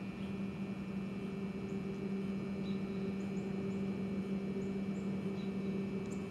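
A steady low hum with a fainter overtone above it, and faint short high chirps now and then.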